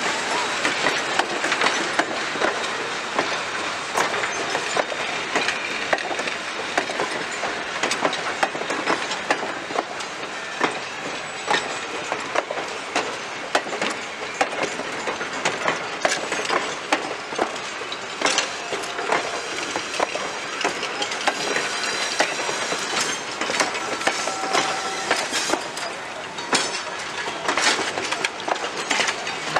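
Passenger coaches and cabooses of a train rolling slowly past, their wheels clacking over rail joints. A few brief squealing tones come in the second half.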